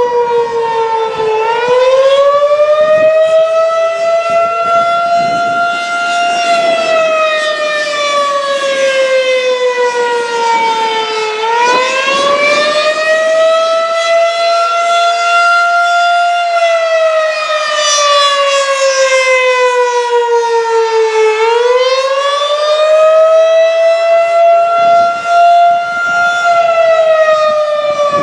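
Federal Signal 2001-SRN electromechanical outdoor warning siren sounding the Attack signal, a slow wail. Its pitch climbs for about five seconds, then sinks for about five seconds, and this repeats continuously.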